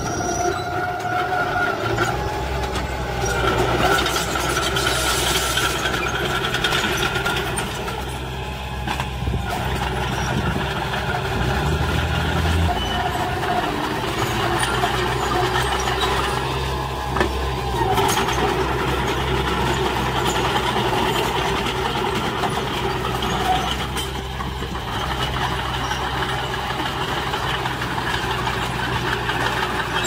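Small crawler bulldozer's diesel engine running steadily as it pushes soil, mixed with a dump truck's engine. A short hiss about five seconds in, and a couple of knocks later on.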